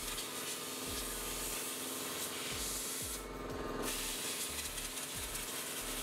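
Pressure washer (1700 PSI) spraying water onto a window, a loud steady hiss. The hiss briefly thins a little after three seconds in, then resumes.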